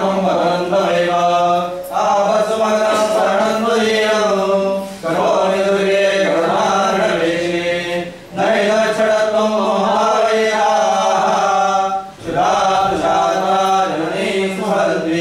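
A group of devotees chanting a Hindu devotional mantra together, in phrases of three to four seconds with short breaks for breath, over a steady low drone.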